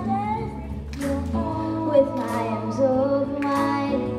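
A Motown song: singing over an instrumental backing track with a steady bass line.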